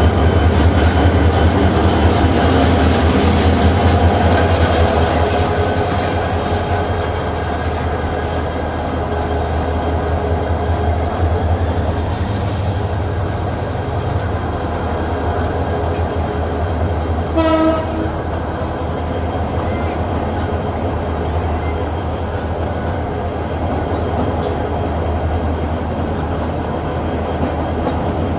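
Moving train running with a steady, dense rumble and rattle. About two-thirds of the way through there is one brief horn blast.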